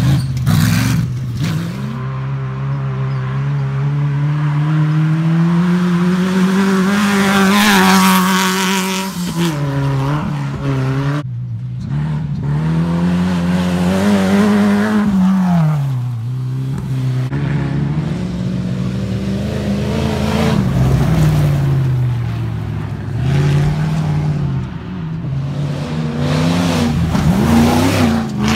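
Off-road racing buggies and a trophy truck passing on a dirt track, their engines revving hard, the note rising and falling repeatedly with throttle and gear changes. The sound breaks off abruptly about eleven seconds in and picks up again.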